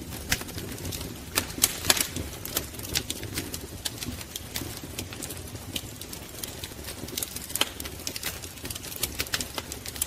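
Wood fire crackling: irregular sharp pops and snaps over a low, steady rumble of the flames, with a cluster of louder pops about two seconds in.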